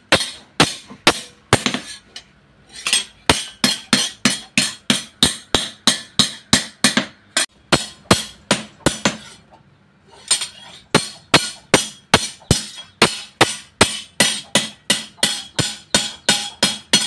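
Hand hammer forging a steel bendo (sugarcane-cutting blade) held in tongs on an anvil: a steady run of sharp metal-on-metal blows, about two and a half a second, with two short pauses, about 2 seconds in and about 10 seconds in.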